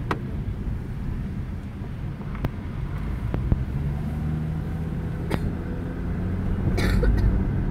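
Steady low rumble of a car's engine and tyres heard from inside the cabin, the engine note strengthening about halfway through and the whole getting louder near the end. A few sharp clicks sound here and there.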